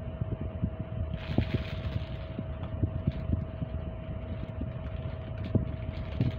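Handling noise as a stainless steel wire-mesh strainer in a clear plastic bag is turned in the hands: a brief plastic crinkle about a second in and scattered soft knocks, over a low steady rumble with a faint steady hum.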